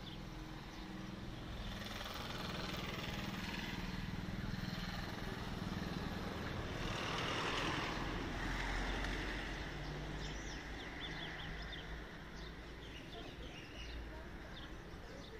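A motor vehicle passing on the road. Its noise swells to a peak about halfway through and then fades away.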